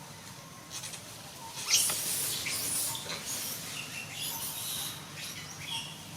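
Newborn monkey giving a run of high-pitched squeaks and squeals, starting suddenly a little under two seconds in and going on for about three seconds.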